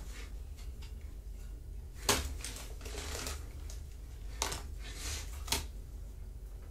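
Kittens at play: scratchy scrabbling and rustling, with three sharp knocks spread over the few seconds, the first the loudest.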